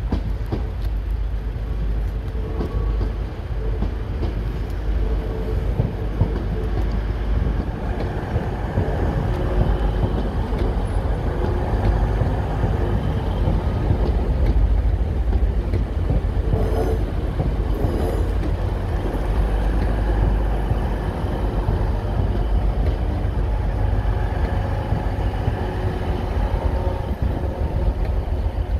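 TransPennine Express Class 185 diesel multiple unit running past at low speed, its diesel engines giving a steady rumble that grows louder as the train comes alongside, with a short clatter of wheels over the track about two-thirds of the way through.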